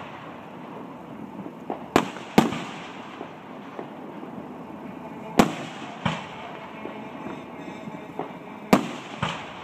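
Aerial firework shells bursting: three pairs of sharp bangs a few seconds apart, each followed by a rolling echo.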